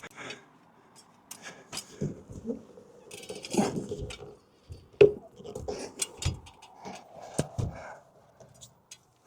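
Irregular knocks, clicks and scraping of something being handled and worked at, with a sharp knock a little after five seconds standing out.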